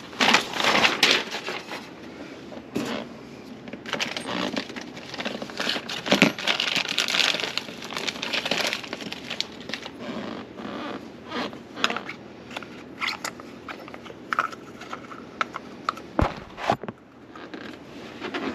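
Hands handling plastic drain fittings and a rubber sealing ring: irregular rustling and crinkling with many small clicks and knocks of plastic parts.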